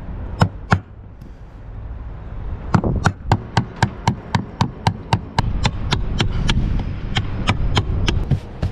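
Hammer driving a chisel into a wooden boat deck: two blows about half a second in, then a steady run of about three blows a second from nearly three seconds in.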